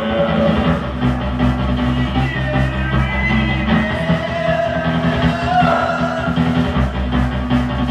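Live rock band playing a song, with sustained bass notes, guitar and drums.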